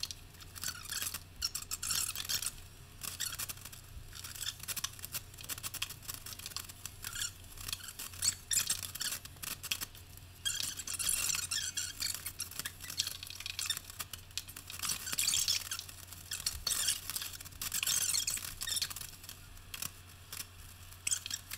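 Sped-up time-lapse audio of subway tile being fitted around a shower window: a rapid, high-pitched jumble of clicks, taps and scrapes from tile, trim and tape being handled, over a steady low hum.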